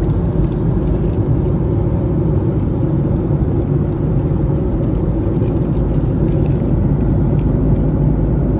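Steady rumble of an airliner in flight, engine and airflow noise heard from inside the passenger cabin.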